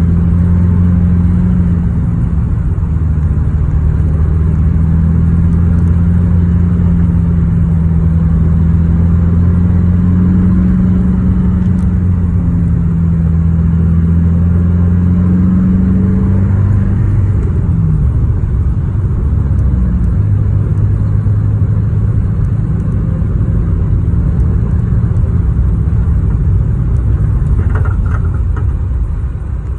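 Car engine and road noise heard from inside the cabin: a steady low drone whose pitch creeps up slowly, then drops and settles lower a little past halfway.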